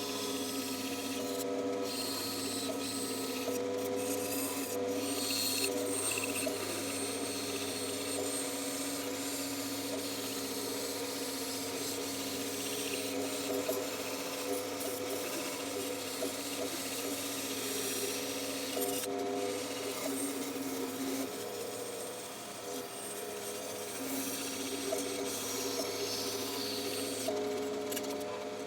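Bandsaw running and cutting through wood: a steady motor hum under the continuous scraping of the blade in the wood.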